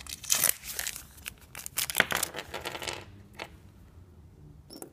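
A small parts packet being torn open and crinkled by hand to unpack a new sealing ring for a differential plug, crackling for about three seconds, then quieter with a couple of faint clicks.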